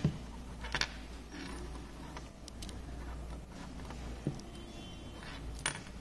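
Faint handling noise from a small key-operated ignition switch, with the key turned in the lock and multimeter test leads pressed against its metal terminals: a handful of separate small clicks with light rubbing between them.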